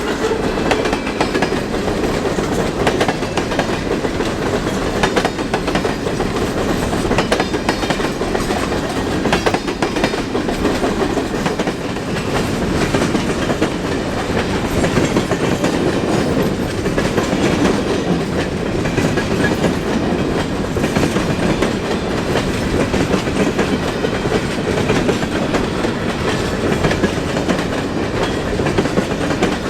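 Freight train cars rolling past, their steel wheels clicking over rail joints in a steady clickety-clack.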